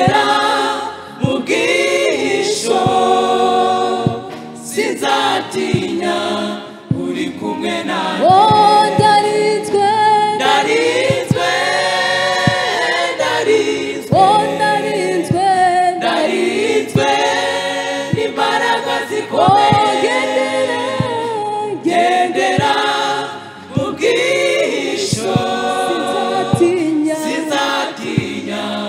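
A women's gospel choir singing together in phrases of a few seconds, with hands clapping along.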